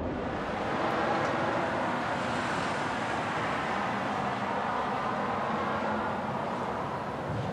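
Front-loader garbage truck's diesel engine running steadily with its hydraulics working as the front arms lower an emptied dumpster back to the ground.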